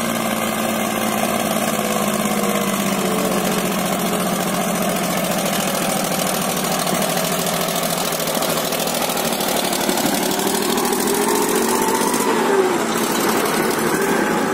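Diesel tractor engine running steadily as it pulls a trolley loaded with soil toward and past, its note rising and falling about ten seconds in as it goes by close.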